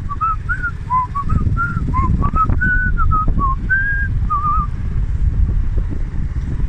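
A person whistling a tune of short, quick notes that wander up and down, ending in a warble and stopping about four and a half seconds in. Under it, wind buffets the microphone on a moving scooter in a steady low rumble.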